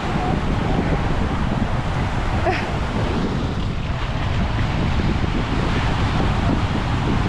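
Wind buffeting a GoPro action camera's microphone with a steady, fluttering rumble, over the wash of surf on a beach.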